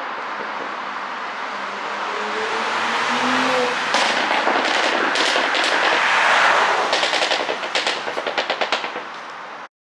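2018 Porsche Cayenne 3.0T's turbocharged V6 exhaust building up in revs, then crackling and popping on the overrun in a rapid string of bangs from its ECU pop-and-bang tune. The sound cuts off suddenly near the end.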